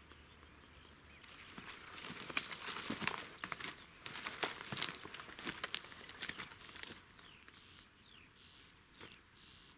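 Dry grass and brush crackling and rustling underfoot in a dense, irregular run. It starts about a second in and stops about seven seconds in.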